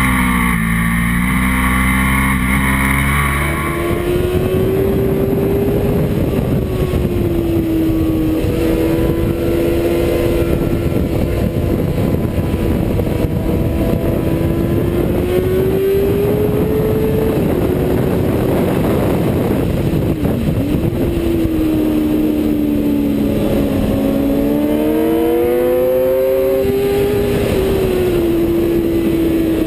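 Sport motorcycle engine running at track speed, its note climbing and dropping with throttle and gear changes, under heavy wind rush on the microphone. The engine note changes abruptly about four seconds in.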